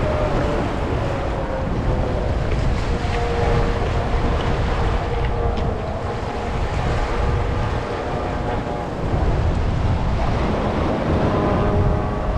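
Wind buffeting the microphone over the wash of waves against rocks, with a faint hum coming and going in the background.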